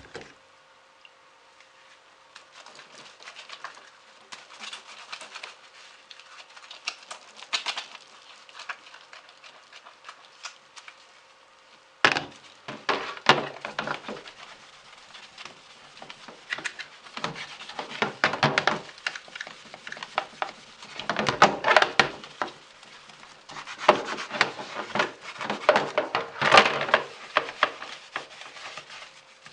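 Ventilation fan blades and frame being scrubbed by hand: irregular rubbing and scraping with clicks and knocks as the parts are handled, light at first and much louder and busier from about twelve seconds in. A faint steady hum runs underneath.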